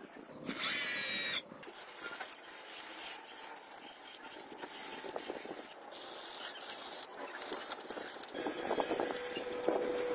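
Small electric motors and servos of a homemade RC excavator whirring and clicking as the model is run by radio control, with a steady whine near the end. A brief high warbling chirp sounds about half a second in.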